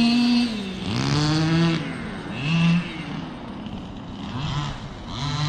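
Small two-stroke engine of a 1/5-scale gas RC truck running at high revs, then dropping about half a second in and revving up and down in repeated bursts of throttle.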